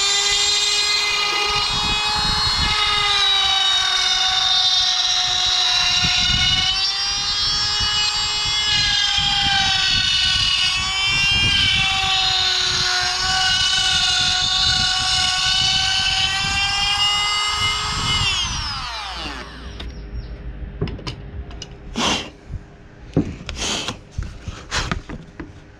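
Electric power tool motor spinning up and running at a steady high whine, its pitch wavering slightly, then winding down after about eighteen seconds. A few sharp knocks follow near the end.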